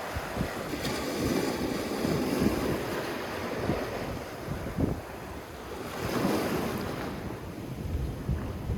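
Sea waves washing onto a sandy shore, the surf swelling and falling back in slow surges, with wind buffeting the microphone.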